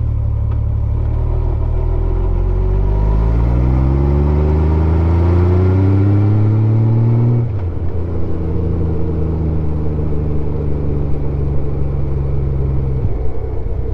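Honda Gold Wing GL1500's flat-six engine under way, its pitch rising steadily for a few seconds, then dropping abruptly about halfway through and running on with a slowly falling pitch.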